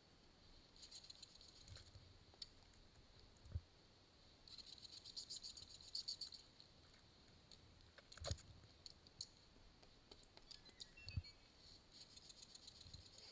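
Faint, scattered clicking and rattling, with a rapid run of clicks lasting about two seconds near the middle and three soft thumps.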